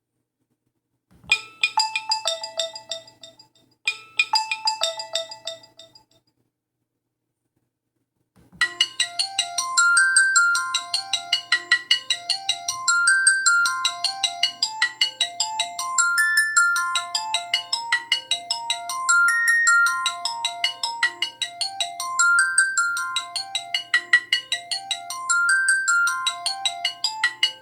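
Alcatel 3025 mobile phone's built-in tones: a short jingle of a few notes plays twice. After a pause of about three seconds, a longer ringtone melody starts about eight and a half seconds in and keeps repeating its phrase.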